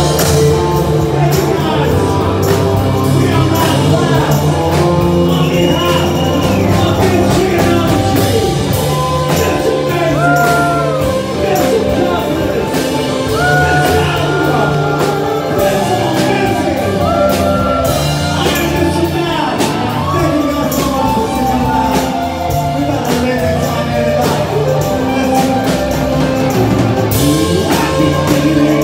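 Live rock band playing loudly, with a singer, held instrument notes and a steady drum beat.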